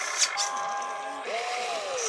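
Small electric motors of a toy RC excavator whining as the boom and arm move. The whine holds steady, then rises and falls in pitch in the second half, with two sharp clicks near the start.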